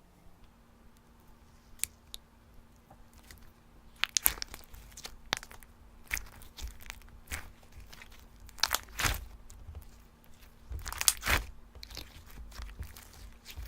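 Slime being handled and squeezed by hand, giving sharp crackles and pops in irregular clusters that begin about four seconds in.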